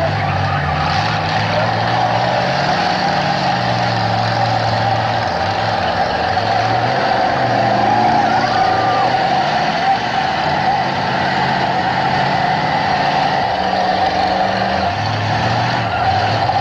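Several demolition-derby cars' engines running and revving, their pitch rising and falling unevenly over a steady din.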